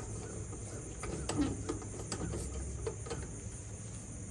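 Insects trilling steadily in the background, with a handful of light clicks and knocks of things being handled between about one and three seconds in.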